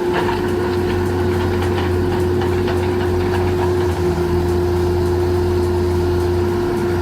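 A heavy machine's engine running at a steady speed: a constant whine over a low drone.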